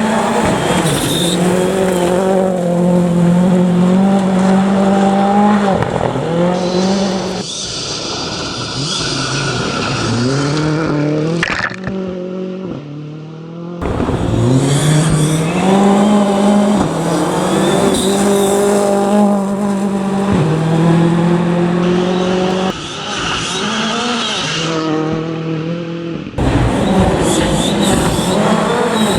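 Rally car engines revving hard at high rpm, pitch climbing and dropping through gear changes, as several cars pass in turn. The sound changes abruptly every few seconds.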